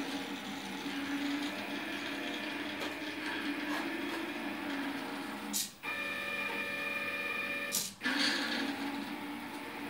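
Stepper motors of a homemade pen plotter whining as they drive the pen carriage along its rails, several steady tones that change pitch as the moves change. The motors stop briefly twice, each time with a click, about a third and four-fifths of the way through.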